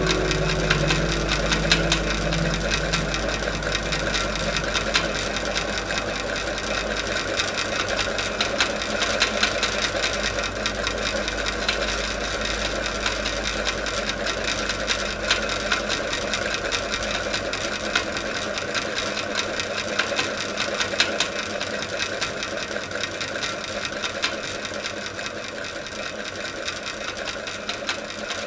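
Old ceiling fan running with a fast, steady rattling clatter, the noisy fan that has been left without oil.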